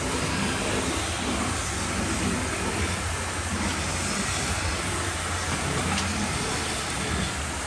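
A motor-driven water sprayer running steadily, its motor humming under the hiss of spraying water.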